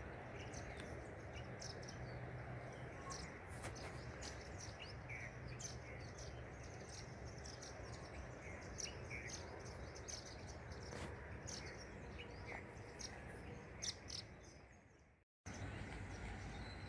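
A flock of small birds chirping: many short, scattered calls over a steady background hiss.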